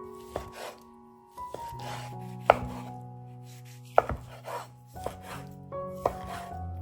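Knife cutting food on a cutting board: several sharp knocks of the blade on the board at irregular intervals, with softer slicing and scraping sounds between them, over soft background music.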